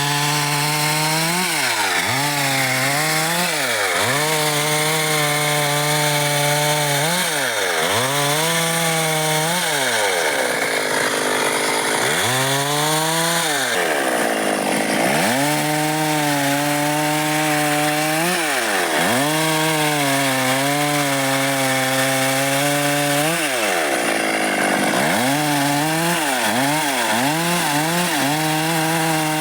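Stihl MS 382 two-stroke chainsaw cutting dry wood at high revs. Its engine pitch dips sharply and climbs back over and over, every couple of seconds.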